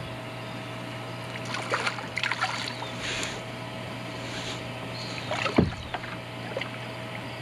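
A hooked smallmouth bass splashing at the surface beside a kayak as it is played and reeled in, with scattered knocks and splashes. The loudest is a sharp swoosh about five and a half seconds in. A steady low hum runs underneath.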